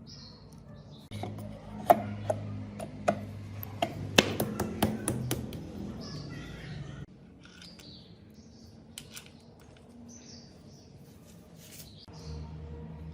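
A run of sharp clicks and light taps, like hand tools and small parts being handled during motorcycle work, over a low steady hum. The taps are densest a few seconds in. The hum stops suddenly about halfway, leaving it quieter, and a low hum comes back near the end.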